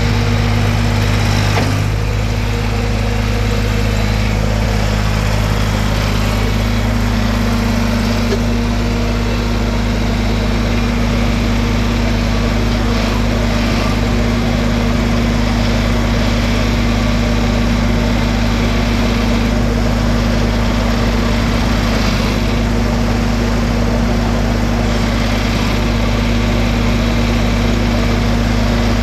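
John Deere 310 loader backhoe's engine running steadily at an even pitch.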